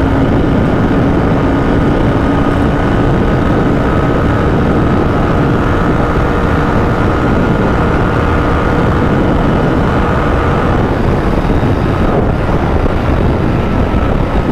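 Royal Enfield Continental GT650's parallel-twin engine running at high speed on the highway, a steady engine tone under a loud rush of wind noise.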